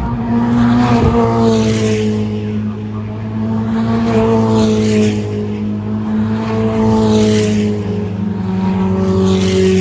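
Race cars passing at speed one after another, four passes about three seconds apart, each engine note falling in pitch as the car goes by, over a steady low drone.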